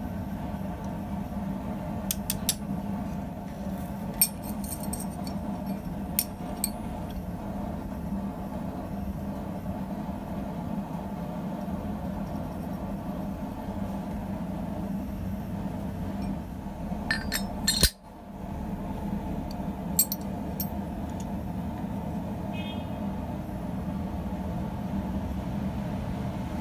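Sharp metallic clinks and taps of steel on steel as forged scissor halves and blacksmith tongs are handled on a steel bending jig. They come scattered, with a quick cluster about two-thirds of the way through, over a steady low hum.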